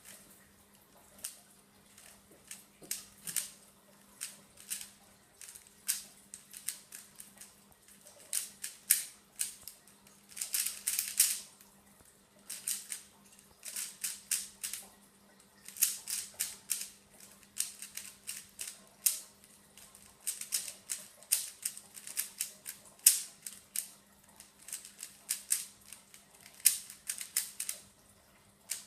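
A 3x3x3 Rubik's Cube being turned fast during a timed solve: rapid plastic clicking of the layers in quick runs, broken by short pauses.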